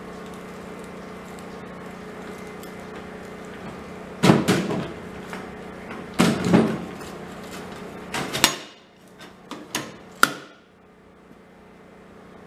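Steel ammo-box gasifier handled on a metal workbench: two heavy clunks about two seconds apart, then a few sharp metallic clicks. A low steady hum cuts off about two-thirds of the way through.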